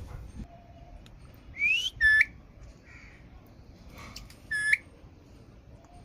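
Green parrot whistling and calling: a rising whistle, then a short sharp high call right after it, and another short call about four and a half seconds in.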